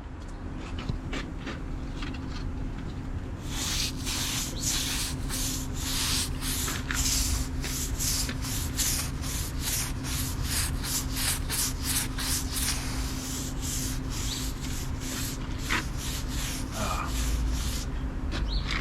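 Stiff brush scrubbing acid over wet brick, in quick back-and-forth strokes about two to three a second that start a few seconds in and stop near the end: the acid wash that cleans mortar residue and dust off freshly laid brick.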